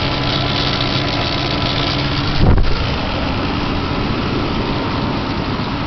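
1998 Dodge Durango's 5.2-litre V8 idling steadily, picked up close at the right rear corner of the engine, where the owner hears a strange knock he cannot identify and has ruled out the injector. A brief thump about two and a half seconds in.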